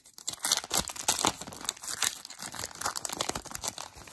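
Hockey card pack wrapper (Upper Deck Series One) being torn open and crinkled by hand, with dense, irregular crackling rustles.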